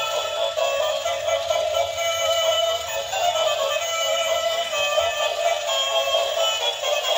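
Battery-operated toy cow playing an electronic song with synthesized singing through its small speaker, thin and without bass.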